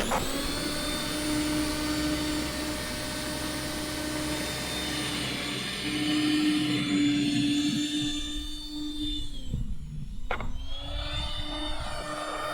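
A snowblower's small engine running steadily with an even whine. About ten seconds in it dips briefly and drops in pitch, then picks back up.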